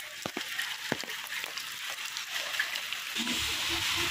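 Steady rain falling: an even hiss with scattered drops tapping sharply.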